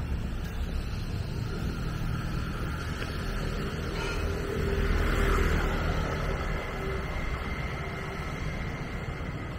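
City street traffic: a steady low rumble of passing engines, swelling as a motor vehicle goes by about five seconds in.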